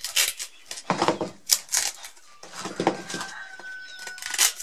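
Tin snips crunching through the rim of a 230 mm abrasive cut-off disc, giving a series of irregular sharp snaps and crackles as small pieces of the disc break away.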